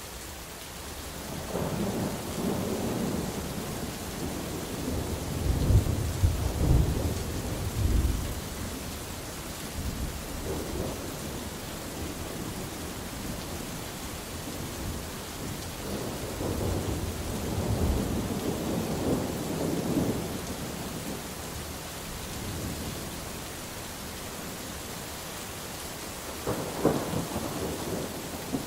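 Steady rain with rolling thunder: a long rumble builds from about two seconds in, with its loudest cracks around six to eight seconds. A second rumble follows in the middle, and a sharper thunderclap comes near the end.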